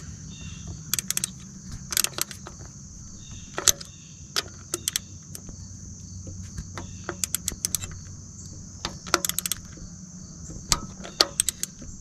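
Ratchet wrench clicking in short runs as the mounting bolts of a new ignition coil pack are tightened, metal on metal. A steady high hiss and a low hum sit underneath.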